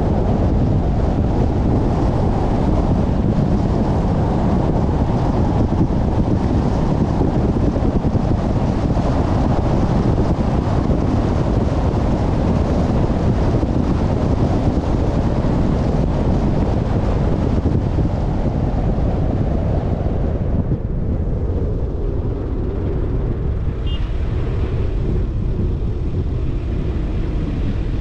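Steady road and wind noise from a moving car: a deep even rumble with a hiss over it. The hiss fades about twenty seconds in while the rumble carries on.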